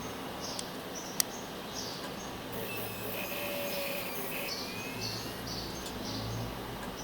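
Failing Maxtor STM3802110A hard drive making short, high-pitched chirping, scratching sounds, about two a second, with one sharp click about a second in. The drive is defective and the noise is taken as a sign that it is at the end of its life.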